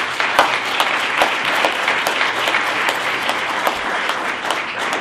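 Audience applauding: many hands clapping at once, steady and sustained.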